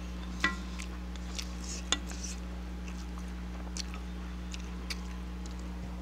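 Cutlery clinking against a metal wok while eating: one clink about half a second in rings briefly, a second sharp clink comes just before two seconds, and a few lighter taps follow, with faint chewing. A steady low hum runs underneath.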